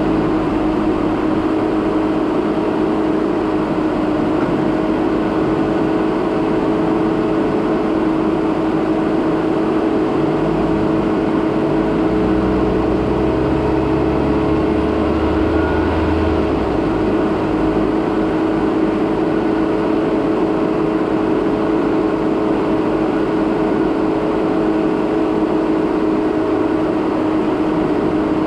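2017 Jeep Renegade Trailhawk driving on a dirt road: steady running and road noise with a constant hum. About halfway through, a lower engine note rises in steps and holds for several seconds before dropping back.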